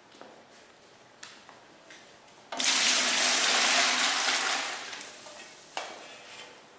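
Water poured from a stainless steel pan into a plastic bucket to mix salt brine. It splashes in suddenly about two and a half seconds in, runs for about two seconds and tails off, with a short knock near the end.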